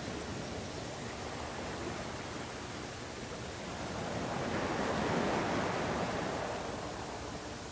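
Steady hiss of a VHS security-camera recording, with a broad swell of rushing noise that rises about four seconds in, peaks, and fades again over roughly three seconds.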